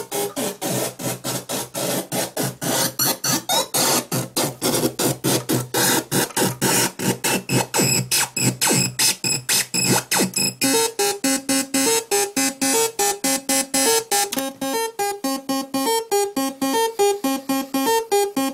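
Doepfer Dark Energy monophonic analog synthesizer playing a fast, even run of short notes, about five a second. For the first ten seconds or so the notes are bright and noisy; then the tone turns clean and pitched, the notes hopping between a few pitches in a bouncing pattern with a glittery high edge.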